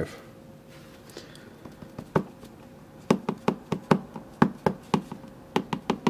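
Brass Mul-T-Lock dimple lock cylinder being tapped repeatedly to shake a pin out of its chamber: a few single knocks, then from about three seconds in a quick run of sharp knocks, about four or five a second.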